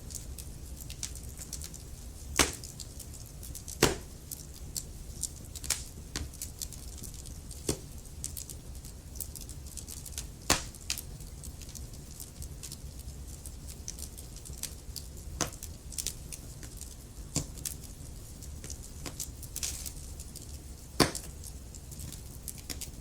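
Wood fire burning in a fireplace: irregular crackles and sharp pops from the logs over a steady low rumble, with a few louder pops spaced several seconds apart.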